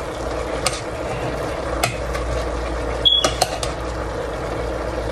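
Metal spoon stirring diced carrots and potatoes in a stainless steel stockpot: scattered clinks and scrapes of metal on the pot, several in quick succession about three seconds in, over a steady background hiss.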